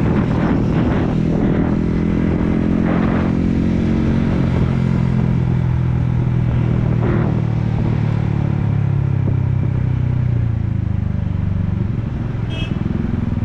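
Yamaha MT-15's single-cylinder engine running through an Akrapovic exhaust while riding. The engine note is steady at first, then eases down in pitch about two thirds of the way in as the rider backs off the throttle.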